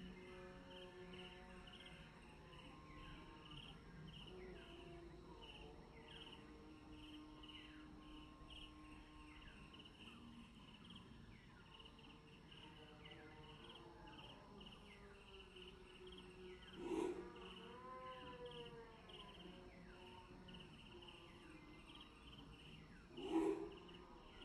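Faint rural outdoor ambience of birds and insects: a high call pulses about twice a second throughout, with scattered short falling chirps, and two louder harsh calls stand out in the second half, about six seconds apart.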